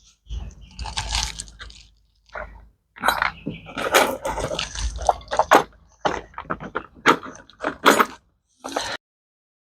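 Irregular clicks, knocks and rattles of a motorcycle clutch cable and its fittings being handled and tried in place, with short pauses between.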